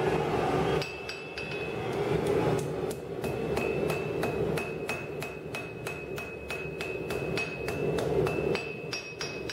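Hand hammer striking red-hot spring steel on an anvil, forging a post-vise spring: a run of blows about three a second starting about a second in. A high ringing tone carries on between the strikes, over a steady low rushing noise.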